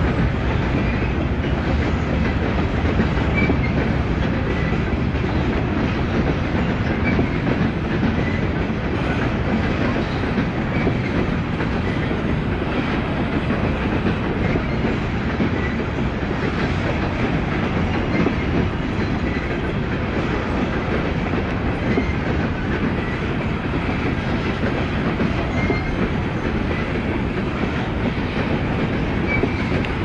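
CSX freight train with GE diesel locomotives rolling past: the engines run with a steady low sound over the wheels' clicking on the rails.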